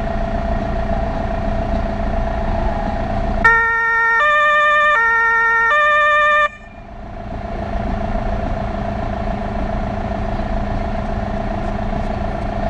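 Two-tone fire-service horn (Martinshorn) sounding loudly for about three seconds, alternating low and high notes twice, then cutting off suddenly. Underneath, the steady drone of the 1977 VW LT 31 fire vehicle's engine, heard from inside the cab.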